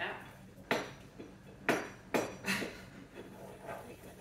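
Pestle grinding dried catnip in a small mortar: about five sharp knocks in the first three seconds, then softer scraping.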